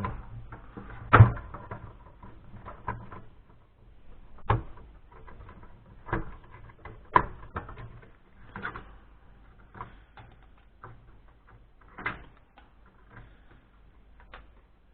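Irregular sharp clicks and light knocks as RAM modules are unclipped and pulled from the desktop motherboard's memory slots, the loudest click about a second in.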